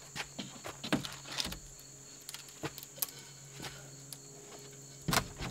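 A cut strip of Hardie board fiber-cement siding tapping and scraping lightly against the wall and trim as it is set into place, with a louder knock near the end. Crickets chirp steadily in the background.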